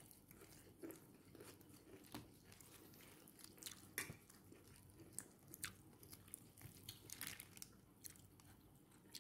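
Faint, scattered cracks and clicks of a petai (stink bean) pod being split open by hand and its beans popped out, the sharpest snap about four seconds in.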